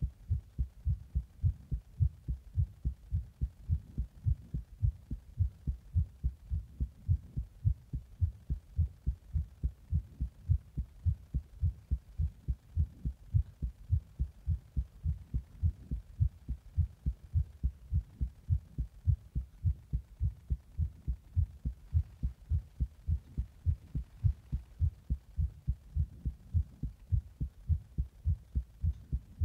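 A human heartbeat recorded close up: low, rapid thumps in an even rhythm, from a heart racing after a Monster energy drink taken in the bath.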